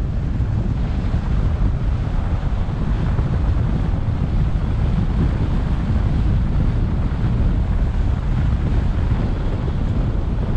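Wind buffeting the microphone of an action camera mounted on the roof of a moving car: a steady, low rumbling rush with no let-up.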